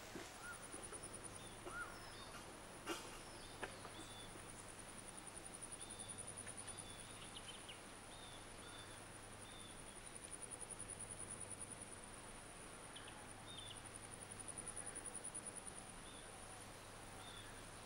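Faint rural ambience: an insect's continuous high-pitched trill, with short bird chirps scattered over it and a couple of sharp clicks about three seconds in.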